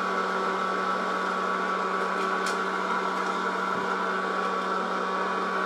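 Presto Fountain hot-air popcorn popper running steadily, its fan motor and heater giving an even hum. One faint kernel pop comes about two and a half seconds in, as popping begins.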